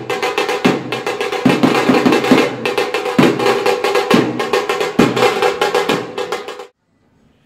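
Dappu frame drums beating a fast, loud rhythm with heavy strokes roughly once a second, over steady held tones from other instruments. The music cuts off suddenly near the end.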